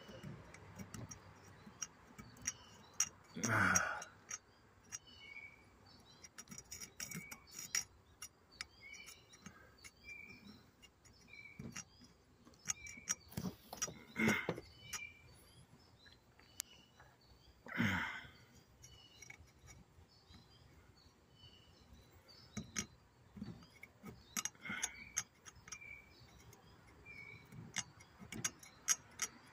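Clicks and scrapes of a metal pick digging caked dirt out of the gear teeth of a lawnmower drive wheel, with a few louder scrapes. Small birds chirp repeatedly in the background.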